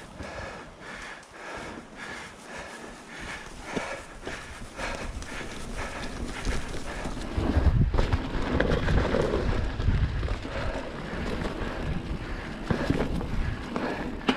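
Mountain bike rolling along a dirt trail, with many short knocks and rattles from the tyres and frame over bumps. Wind buffets the microphone with a heavy low rumble that comes in about halfway through and stays loud.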